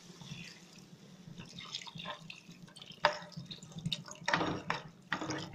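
Tamarind water being poured into a pan of cooked tomato and spice masala, splashing and dripping in irregular spurts.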